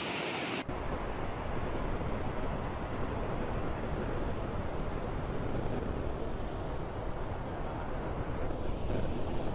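Muddy floodwater rushing through a street as a steady noisy torrent, with wind rumbling on the microphone. The sound changes abruptly about half a second in, the low rumble strengthening.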